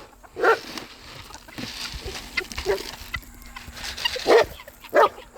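A dog barking: a few short barks, one about half a second in and two close together near the end, with quieter animal noises between.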